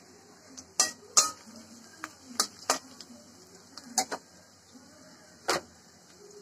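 A metal spatula clinking and scraping against a metal karahi while stirring onions and chillies frying in oil: about eight sharp clicks, unevenly spaced, the loudest near the first second.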